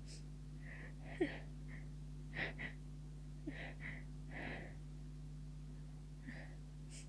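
A person with a head cold taking short, soft gasps and sniffs between stifled sneezes, about half a dozen catches of breath. The sharpest comes about a second in.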